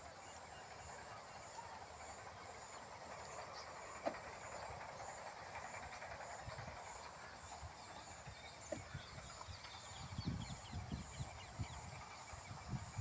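Faint open-air ambience with a thin, high-pitched insect call pulsing evenly throughout. Near the end, low gusts of wind buffet the microphone.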